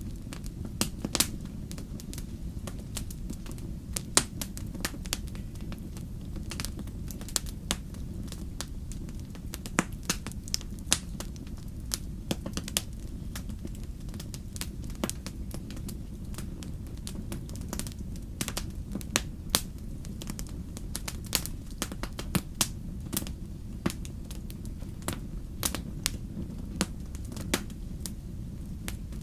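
Wood bonfire burning: irregular sharp crackles and pops over a steady low noise of the flames.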